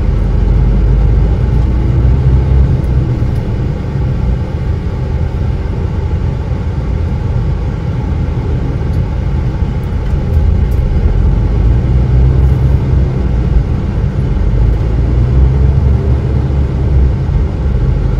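Truck's diesel engine heard from inside the cab as the lorry pulls away from a standstill and gets under way: a steady low rumble that grows louder about halfway through as it picks up speed.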